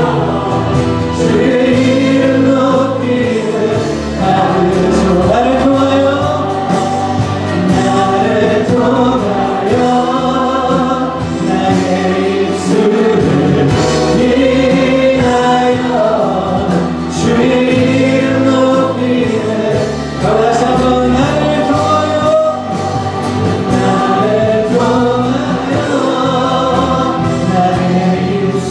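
Church choir singing a hymn in long, held notes.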